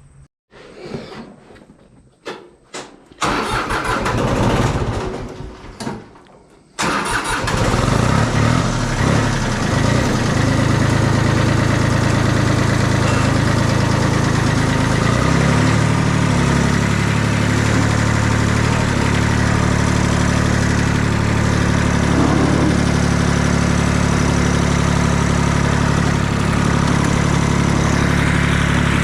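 Tractor engine cranked by its starter for about three and a half seconds, catching near the seventh second, then settling into a steady run.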